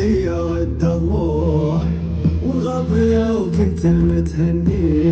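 Music with a man singing a slow melody, long held and bending notes over a steady low bass.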